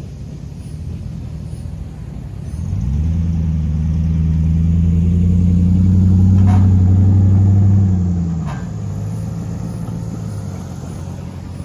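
Road vehicle driving across the railroad grade crossing: its engine drone swells in about three seconds in, runs steady and loud, and fades away a little after eight seconds, over a steady background of traffic noise.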